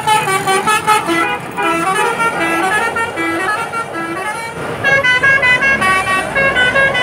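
A bus's telolet basuri multi-trumpet melody horn playing a quick tune of short notes that step up and down, with a second, higher phrase starting about five seconds in.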